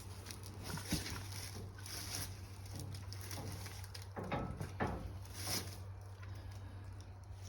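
Cow in labour making a few short low calls that fall in pitch, about a second in and twice between four and five seconds in, over rustling handling noise and a steady low hum.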